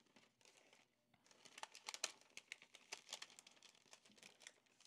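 Faint, irregular crinkling of parchment paper as a folded pan liner is creased and shaped by hand, mostly in short crackles from about a second and a half in.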